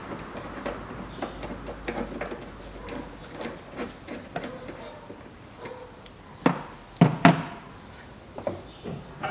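Socket ratchet working the last top-mount nut off a front suspension strut: scattered short clicks, then three louder metal knocks about six and a half to seven and a half seconds in.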